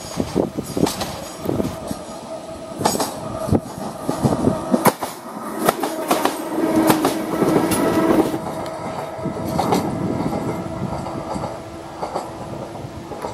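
Isle of Wight Class 483 two-car electric unit, converted 1938 London Underground tube stock, passing close by, its wheels clacking over the rail joints. A steady whine is heard for a second or two as the train passes.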